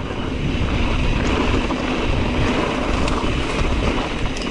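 Wind buffeting the microphone of a ride camera on a Santa Cruz Tallboy mountain bike rolling fast down a rocky trail, a steady rushing with tyre and trail rattle underneath.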